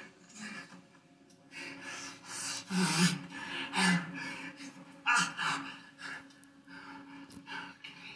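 A man's ragged gasps and panting breaths, irregular and effortful, over a faint steady low hum, played from a film through a TV's speakers.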